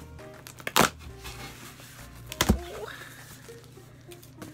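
Cardboard shipping box being handled and opened by hand: two sharp, loud noises, one about a second in and another about two and a half seconds in.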